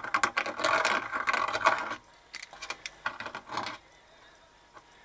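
Hand tool rasping metal as it enlarges a hole in a sheet-steel enclosure cover: a dense run of quick scraping strokes for about two seconds, then a shorter, sparser run.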